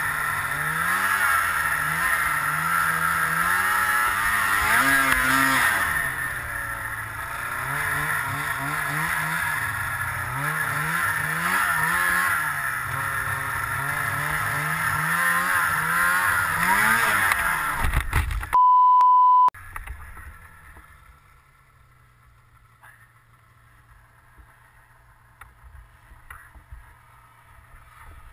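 Snowmobile engine running and revving up and down for about 18 seconds, then a loud impact as the sled lands off a small jump and crashes. A steady beep about a second long follows, then it goes much quieter, with a faint low hum and a few small clicks.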